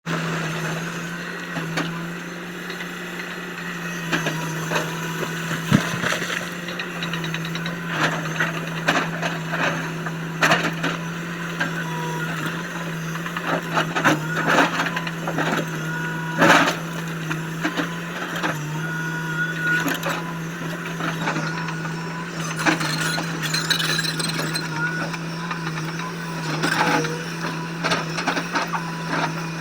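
LiuGong 922 excavator at work: its diesel engine hums steadily at one pitch, under irregular knocks, scrapes and cracking from the bucket breaking into material, with a sharp crack about two-thirds of the way through.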